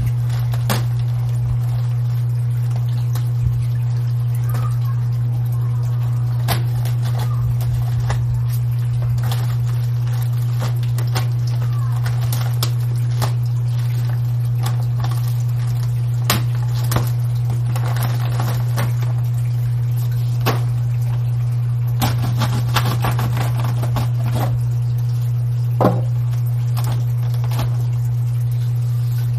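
A loud, steady low hum runs under everything. Over it come scattered clicks, knocks and scrapes as a charcoal kettle grill and a charcoal bag are handled, busiest in the second half.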